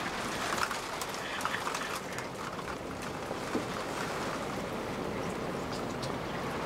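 Heavy rain pouring down, a steady hiss with scattered drop ticks, over floodwater running across a gravel-strewn street.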